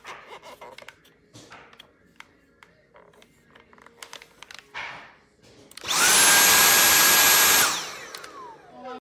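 Clicks and knocks of plastic parts being handled. About six seconds in, a Dyson V8 cordless stick vacuum, running on a DeWalt 20V battery through an adapter, is switched on: its motor spins up to a loud, steady high whine for about two seconds, then winds down with falling pitch.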